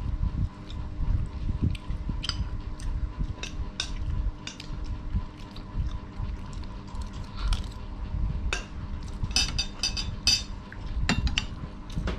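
Metal spoons clinking and scraping on plates and a metal tray during a meal, as irregular clicks with a quick run of clinks about nine seconds in, over a low steady rumble.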